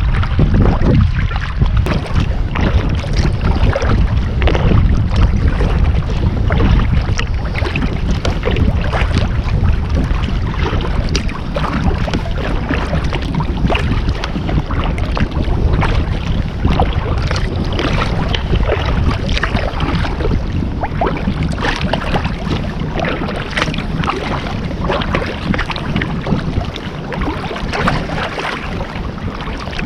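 Wind buffeting the microphone in a steady low rumble, over the irregular splashing and slapping of choppy water against a kayak.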